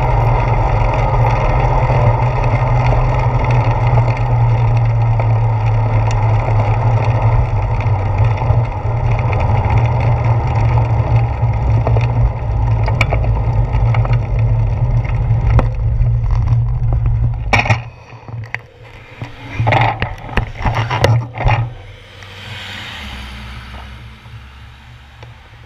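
Wind and road vibration on a handlebar-mounted GoPro Hero 4 while a bicycle rolls along, a loud steady rush with heavy low rumble. About eighteen seconds in it cuts off suddenly as the bike comes to a stop, followed by a few sharp knocks and then a fainter whoosh.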